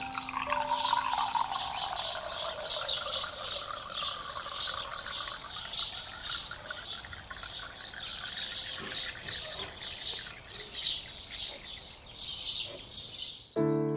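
Lemonade running from a drink dispenser's metal tap into a cup: a steady trickle whose tone falls over the first few seconds and then holds. Birds chirp over it again and again, and piano music comes in near the end.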